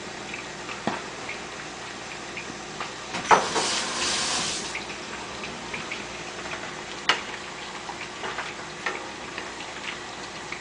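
Liquid pouring in a short rush of about a second and a half, starting about three seconds in. Around it are scattered small clicks and knocks of kitchen utensils.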